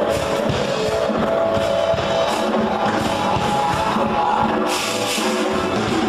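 Rock music playing, with guitar and a steady beat.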